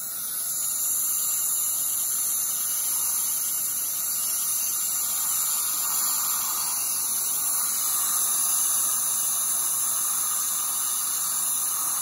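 High-speed dental handpiece (air-turbine drill) with a bur running steadily, a high whine over a hiss of air and water spray, as it cuts down a lower molar to gain more occlusal reduction for a crown preparation.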